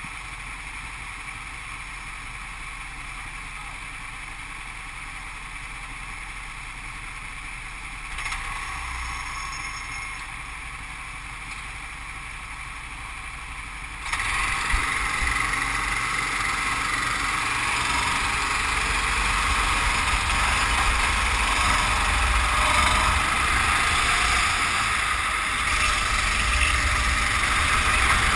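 Go-kart engine noise, steady and moderate at first, then suddenly much louder and rougher with a fluctuating low rumble from about halfway through.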